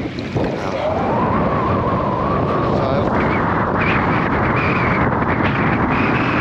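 Wind rumbling on the microphone, with the drone of an engine that rises in pitch about half a second in and then holds steady.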